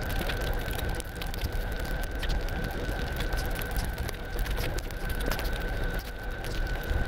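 Close-up eating sounds: chewing, then a bare hand squishing and mixing rice with curry on a plate, many small wet crackles and squelches. A steady high tone runs underneath.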